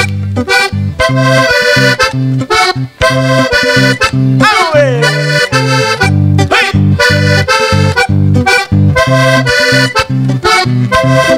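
Vallenato button accordion playing a lively instrumental passage over a low bass line that moves in held notes.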